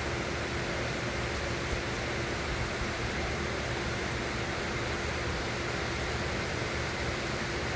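Steady hiss of rain, with a faint steady hum underneath.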